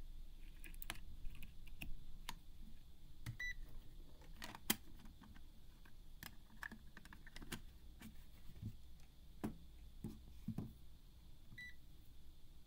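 Plastic clicks and knocks from handling a digital multimeter as its battery compartment and back cover are fitted. The meter gives two short beeps, one about three and a half seconds in and one near the end.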